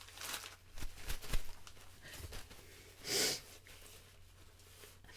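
A person in the build-up of a sneezing fit, with short, noisy, breathy bursts of hard breathing through the nose and mouth. There are a few sharp knocks about a second in, and a louder breathy burst about three seconds in.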